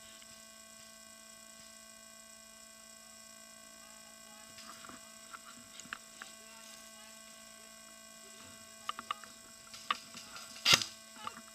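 Steady electrical hum with faint scattered clicks and crackles from about halfway through, then a few louder clicks and one sharp crack near the end.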